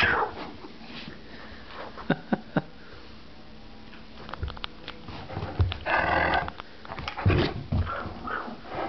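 A Great Dane and a Yorkshire terrier play-fighting, growling in short bursts, the loudest about six and seven seconds in. Three quick sharp knocks come about two seconds in.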